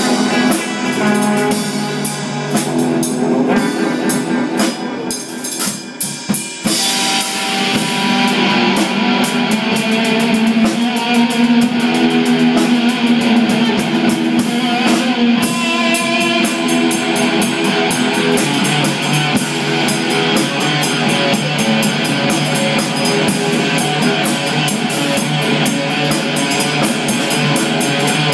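Live amplified electric guitar and drum kit playing a rock instrumental together. After a short break about six seconds in, the drums keep a steady beat with busy cymbals under the guitar.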